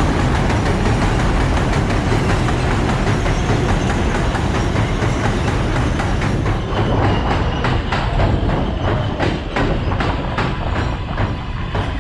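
R188 subway train running on the elevated track, a dense rumble of wheels and rail noise with clickety-clack over the rail joints. In the second half the rumble eases and the wheel clicks stand out as separate, evenly spaced beats, with a faint steady whine underneath.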